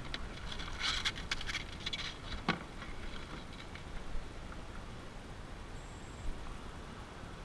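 Rustling and light tapping as a summer flounder (fluke) is handled against a plastic measuring board in a kayak. A quick flurry of clicks comes in the first few seconds and ends in a sharper knock, then only a low steady rumble remains.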